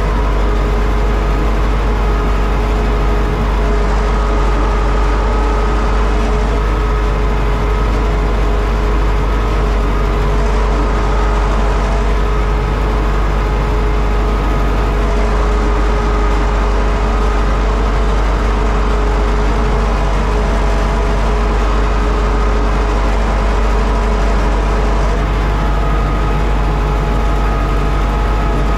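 Universal U650 tractor's four-cylinder diesel engine running steadily under load while pulling a four-furrow plough, heard from inside the cab, with a constant whine over it.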